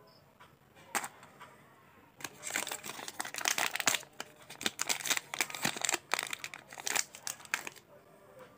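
Plastic snack wrapper of a Pure Magic Chocolush biscuit crinkling and tearing as it is worked open by hand. This is a dense crackle of plastic that starts about two seconds in and stops shortly before the end, after a single sharp click about a second in.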